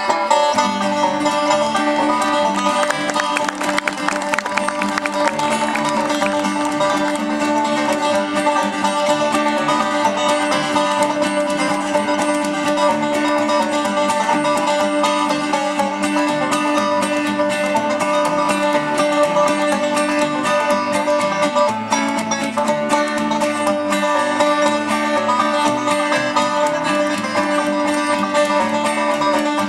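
Live bluegrass instrumental on five-string banjo, acoustic guitar and upright bass, with no singing.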